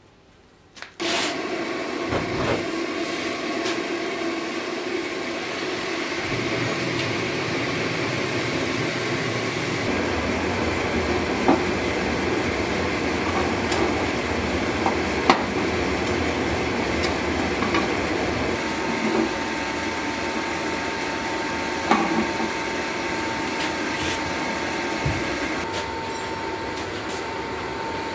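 Gas forge with an electric blower running: a steady rushing noise that starts suddenly about a second in. There are a few sharp knocks, and a thin high whine joins about two-thirds of the way through.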